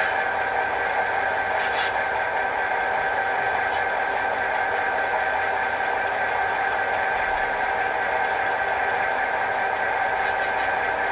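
HO scale model diesel locomotive's sound decoder playing a steady idle hum through its small speaker. A few light clicks of model cars and couplers being handled come about 2 and 4 seconds in and in a quick cluster near the end.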